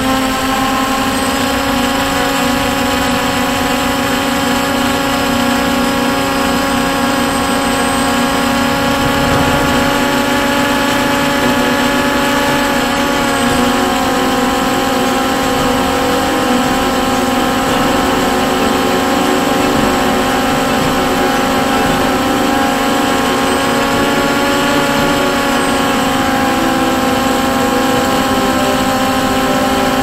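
WLtoys XK X1 quadcopter's motors and propellers, heard from its on-board camera: a steady, multi-tone whine over a low hum. The pitch wavers briefly about 13 seconds in and again near 25 seconds as the drone adjusts its flight.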